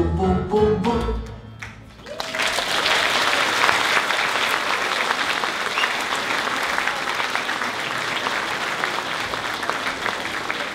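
A dance song with a beat ends about two seconds in, and an audience then applauds steadily.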